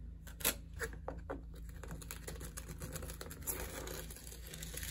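Notched spreader scooping and combing thinset mortar onto a bare wall: soft scraping with a few small clicks in the first second or so, then a longer scrape near the end.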